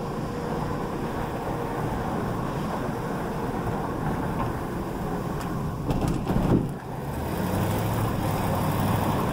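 Car engine and road noise heard from inside the cabin while driving slowly, steady throughout, with a brief louder rush about six seconds in.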